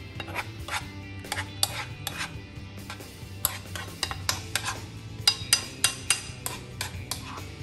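A metal utensil clinking and scraping against a frying pan: a string of sharp clicks, with the brightest, ringing clinks in a quick cluster past the middle. Steady background music plays underneath.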